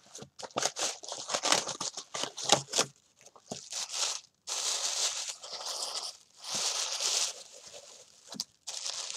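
White tissue paper crinkling and rustling as it is pulled out of a paper gift bag and unwrapped by hand. It starts as a quick run of sharp crackles, then turns to longer bursts of rustling.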